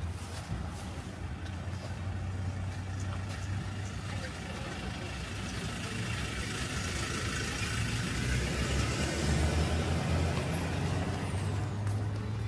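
Motor vehicle traffic: a steady low engine hum, with a rushing noise that swells to a peak about three quarters of the way through as a vehicle passes.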